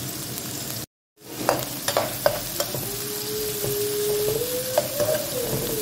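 Sliced red onions sizzling in oil in a wok, with a metal spatula clicking and scraping against the pan several times as they are stirred. The sound cuts out briefly about a second in, and a steady tone that rises a little and then falls runs through the second half.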